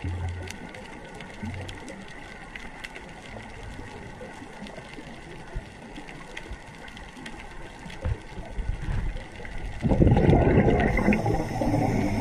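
Underwater reef ambience heard through a GoPro housing: a steady low hiss with scattered faint sharp clicks. About ten seconds in, a loud rush of bubbling takes over, typical of a scuba diver's regulator exhaling.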